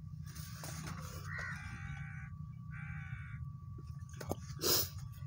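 An animal calling twice, each call under a second long and about a second apart, over low steady outdoor background noise and a faint steady high tone. A short rustling burst comes near the end.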